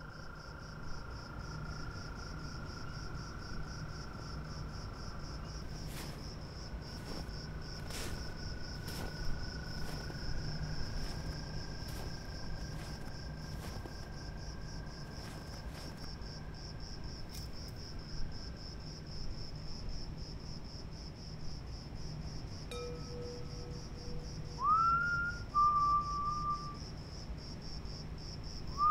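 Crickets trilling steadily over a low hum, with long held tones through the first two-thirds. A string of sharp clicks comes in the middle. Near the end, rising whistled notes level off onto a steady pitch.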